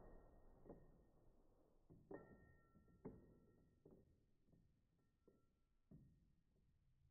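Near silence. The last of a rifle shot's echo fades out at the start, then faint, sparse struck notes like quiet music follow, about one a second.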